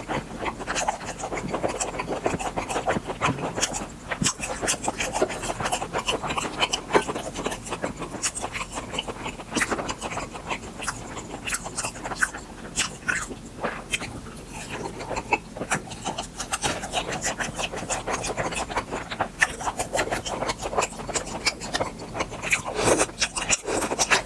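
Close-miked chewing and wet mouth clicks of someone eating grilled beef intestines, many small smacks in quick succession throughout.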